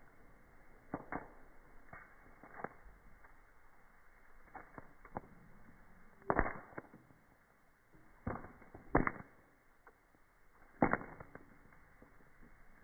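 Popcorn kernels popping one at a time in a cast-iron skillet over an open wood fire, slowed down so each pop becomes a deep, drawn-out thud. About seven or eight pops come irregularly a second or two apart, the loudest about halfway through.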